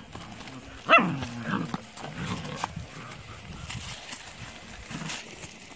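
Malaklı–Kangal cross puppies squabbling: one sharp yelp about a second in that falls in pitch, followed by a few shorter whines and growls over rustling paper.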